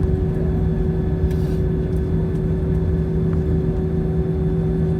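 Steady cabin noise of an Airbus A321 rolling on the ground after landing: the engines' even hum, with two steady tones, over a low rumble.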